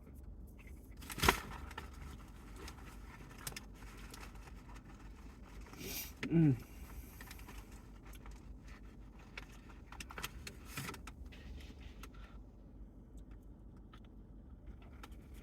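Quiet inside a parked car: a steady low rumble with small clicks and rustles, a sharp click about a second in, and a brief hummed 'mm' from the eater near the middle.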